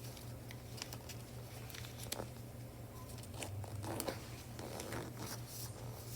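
Paper rustling and crinkling as a sheet is folded and creased by hand, with scattered small taps and crackles.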